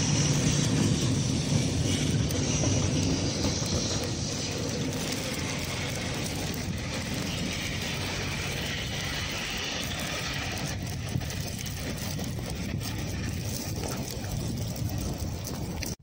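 Tram running on its rails, a steady mechanical rumble with scattered clicks and clatter; it is loudest in the first few seconds and eases off a little after that.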